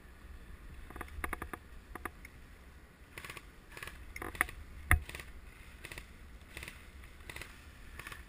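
Scattered light clicks and rustles, with a sharper single click about five seconds in, over a low rumble.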